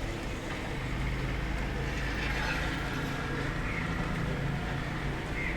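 Steady rainfall heard from indoors, a muffled, even rumble with no separate drops standing out.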